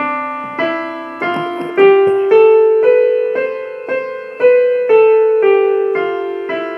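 Electronic keyboard in a piano voice playing the D major scale one note at a time, about two notes a second. It climbs an octave through F sharp and C sharp and then starts back down.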